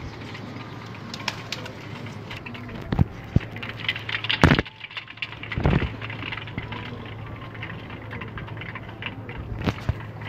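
Domestic pigeons cooing in a loft over a steady low hum, with a few sharp knocks; the loudest knock comes about four and a half seconds in.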